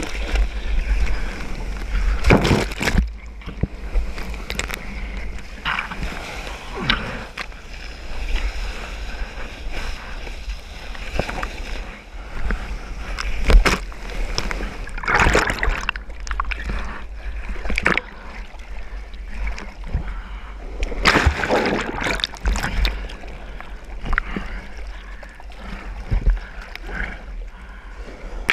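Seawater splashing and rushing over a waterproof-housed GoPro on a surfboard as it goes through breaking surf and whitewater, with a steady low rumble and several louder, irregular splashes.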